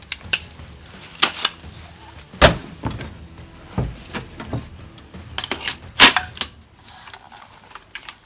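Irregular sharp metallic clicks and knocks from a full-metal CO2 AR-15-style air rifle, about a dozen in all, the two loudest about two and a half and six seconds in.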